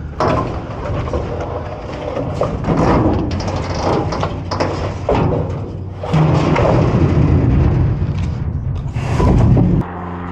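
Scrap wood being handled and tossed, clattering and thudding with many sharp knocks, over a steady low hum. The clatter stops abruptly near the end.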